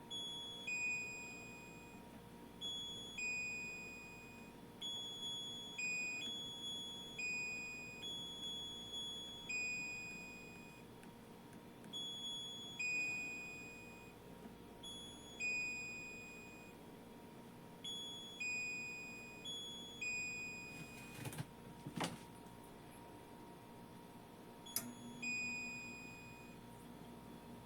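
Electronic beeper sounding a long run of clear beeps, switching back and forth between a higher and a lower note in an uneven pattern. Near the end there are two sharp clicks, and after the second a steady low hum starts.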